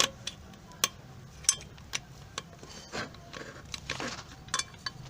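Irregular metallic clicks, knocks and short scrapes of hand tools working on a washing machine transmission, prying out a shaft seal.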